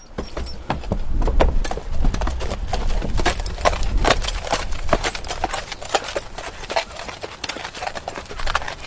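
Horse walking, its hooves clip-clopping in an ongoing run of sharp knocks.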